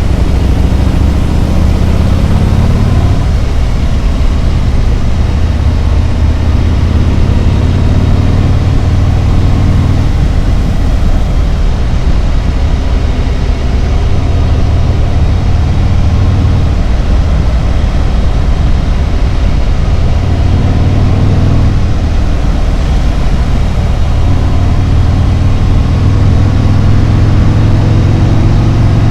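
Harley-Davidson Road Glide's V-twin engine running on the road, a deep steady drone whose note changes several times with throttle and gears, under a constant rush of air noise.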